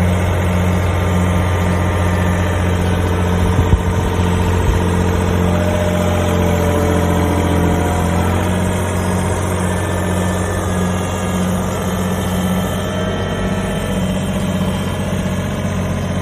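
Yanmar VIO20-1 mini excavator's diesel engine running at a steady idle. There are a few short knocks about four seconds in, and a faint higher whine from about five to eight seconds.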